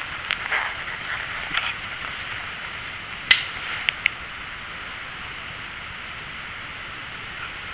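Steady hiss of fine drizzle, with a few sharp clicks and taps in the first half; the loudest comes just over three seconds in, followed closely by two more.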